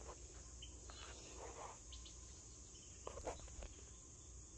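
Faint steady chorus of insects outdoors, an even high-pitched hum, with a soft rustle and a light knock of handling about a second and a half and three seconds in.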